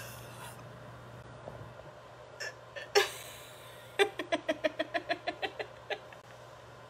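A woman laughing hard: a sharp gasping laugh about three seconds in, then a run of about a dozen quick 'ha' pulses that fade away.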